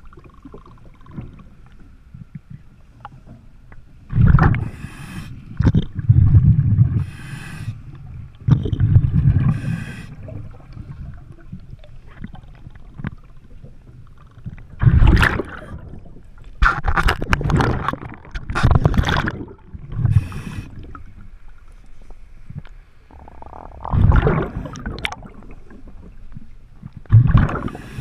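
Diver breathing through a regulator underwater: irregular bursts of exhaled bubbles gurgling and rumbling every few seconds, between hissing breaths.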